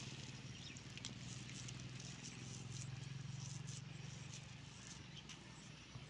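A steady low hum, with faint crackles of a plastic bag and soft handling sounds as a hand scoops and squeezes crumbly fishing bait dough.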